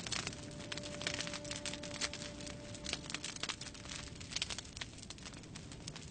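Wood fire crackling and popping in a fireplace, with irregular sharp snaps. Faint held violin notes sound under it and die away about three seconds in.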